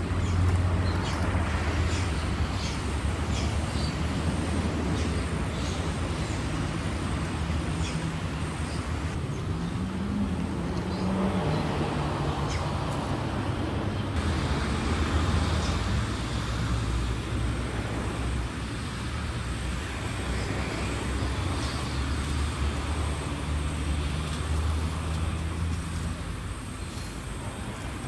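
Motor vehicle engine running steadily with road traffic noise. About ten seconds in, the engine note rises as a vehicle speeds up, then settles back.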